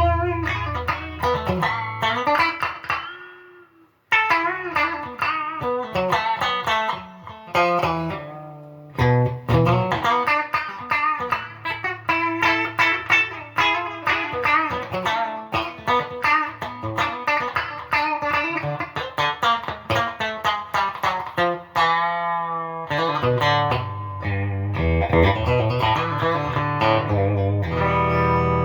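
Gibson Les Paul 50s Standard electric guitar with P90 pickups being played, chords and single-note lines, with a short break about four seconds in. Its volume knob is backed off from 10 to 9, which the player says takes the P90 tone into 'Strat territory'.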